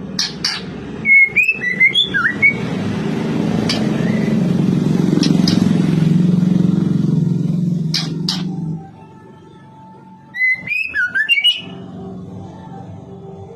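Female white-rumped shama calling: two brief bursts of sharp, gliding whistled notes and clicks, one near the start and one near the end. A low rumble swells and fades through the middle, loudest there.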